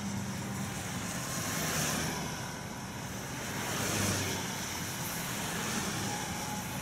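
Road traffic passing on a wet highway, tyres on wet pavement, swelling louder as vehicles go by close, about two seconds in and again about four seconds in.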